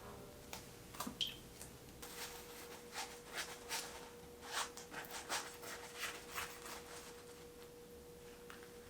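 Faint steady hum with one even tone, under a series of light, irregular clicks and taps of small objects being handled.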